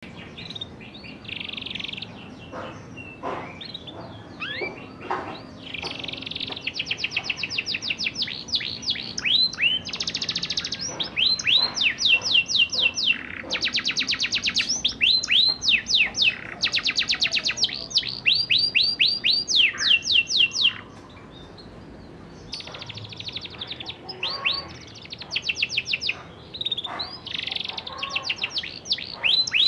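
A young domestic canary singing in fast rolling trills, each run a rapid string of identical repeated notes, with some single chirps between runs. The singing breaks off briefly about two-thirds of the way through, then resumes.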